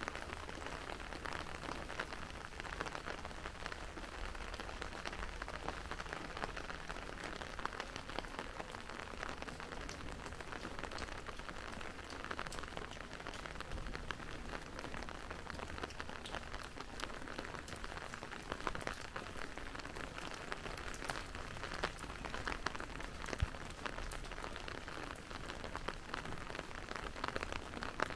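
Steady rain falling and spattering on hard surfaces, with many individual drops ticking close by.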